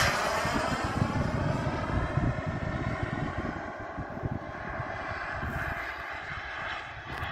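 Radio-controlled model jet in flight: a high, steady engine whine that slowly fades as the jet flies away. Gusts of wind rumble on the microphone.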